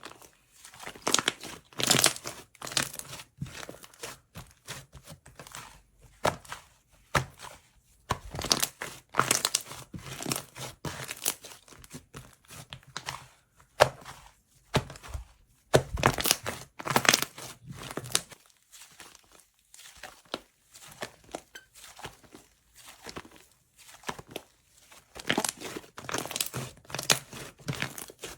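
Slime being squeezed, stretched and pressed by hand, giving irregular bursts of sticky crackling and popping with short pauses between them.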